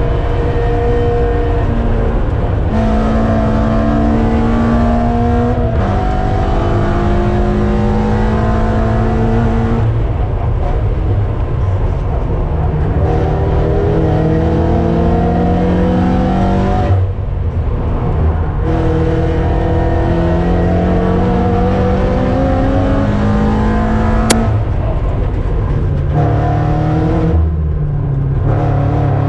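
Race car engine heard from inside the cockpit under hard driving, its pitch climbing through each gear and dropping back at every shift. It eases off briefly about 17 seconds in, then pulls again. A single sharp click comes about 24 seconds in.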